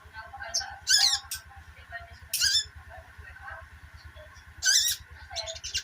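Crimson sunbird (sogon) twittering: a run of quick, high chirps broken by three louder, rapid warbling bursts about a second, two and a half seconds and nearly five seconds in.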